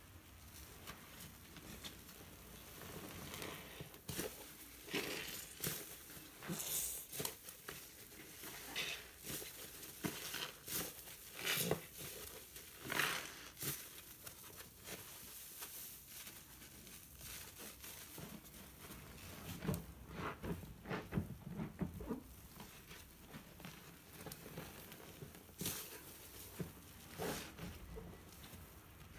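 A foam-soaked kitchen sponge being squeezed and kneaded by hand in thick dish-soap suds. It makes wet squelches and the crackle of bursting bubbles in irregular bursts, with a calmer stretch in the middle.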